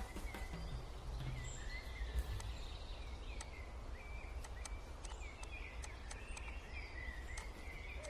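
A string of short bird-like chirps over a steady low rumble, with a few sharp clicks scattered through.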